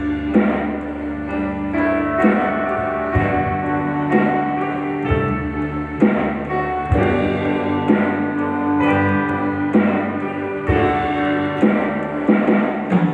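Live band playing an instrumental passage: an electronic drum kit keeps a steady beat with a heavy low hit about once a second, under held chords and a melody line.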